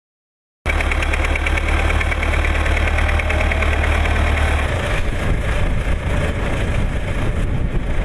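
Diesel engine of a tractor-based backhoe loader running, starting after about half a second of silence; a little past halfway the steady low hum gives way to a rougher engine sound.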